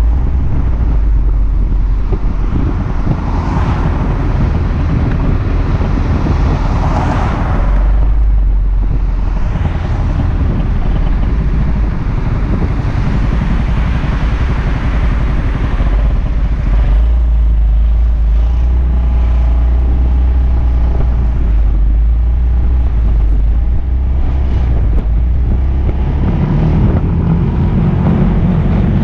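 Suzuki Burgman AN400 maxi-scooter's single-cylinder engine running while riding, heard from a camera mounted on the scooter, under a steady deep rumble of wind on the microphone. The engine grows louder near the end.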